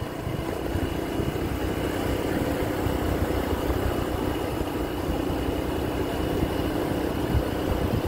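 Small motorbike cruising at steady speed: the engine runs evenly under a steady rush of wind and road noise.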